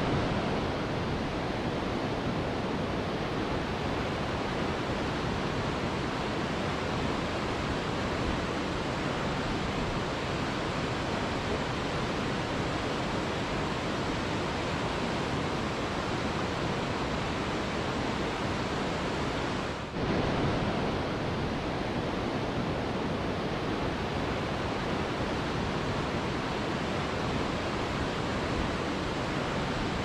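Steady rushing of a tall waterfall, an even wash of falling water, with a brief dip about twenty seconds in.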